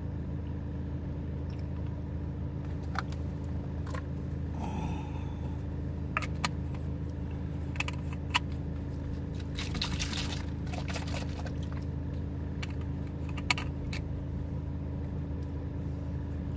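Steady low hum of a car running while it is parked, with scattered clicks and rattles of plastic cups and a bottle being handled as espresso is poured in and the cap is screwed on. The busiest run of clicks comes about ten seconds in.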